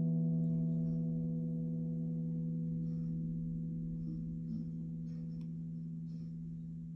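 A 16-inch Chinese wind gong's warm ringing tone slowly dying away, with no new strike. The low hum lingers while the higher overtones fade out.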